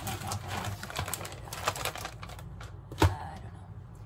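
Food containers and packages being handled and set on a pantry shelf: rustling and light clicks and taps, with one sharper knock about three seconds in as a container is put down.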